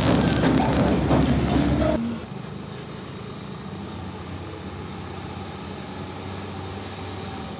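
A heavy diesel truck passes close by, loud with engine and tyre noise. After about two seconds the sound drops sharply to the steady, lower hum of diesel trucks approaching slowly.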